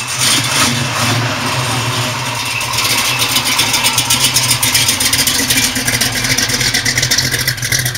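Engine running steadily and loud, with a fast, even pulsing that grows stronger about three seconds in.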